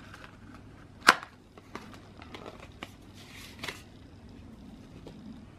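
Paper postcard envelope being opened and the postcards slid out: light paper ticks and rustles, with one sharp snap about a second in and a short rustle a little past halfway.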